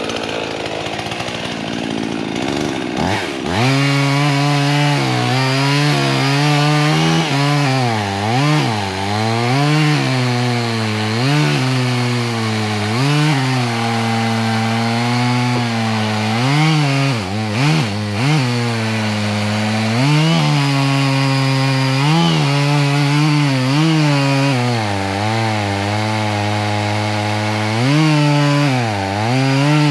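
Chainsaw engine coming up to full speed about three seconds in, then cutting into a dead oak trunk, its pitch dipping and recovering again and again as the chain loads up in the wood.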